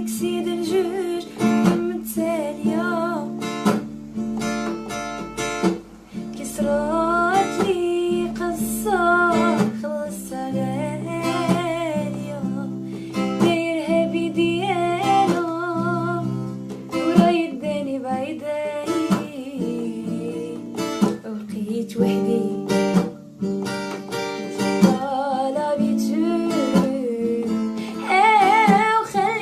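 A song: a voice singing a wavering melody over plucked and strummed acoustic guitar.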